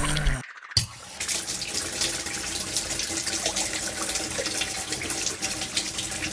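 Tap water running steadily into a small washbasin while someone washes their hands at it. The water starts just under a second in, right after a low hum cuts off.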